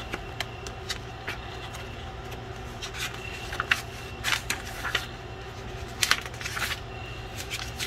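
Pages of a paper owner's manual booklet being flipped through: a run of quick, irregular paper rustles and flicks over a faint steady low hum.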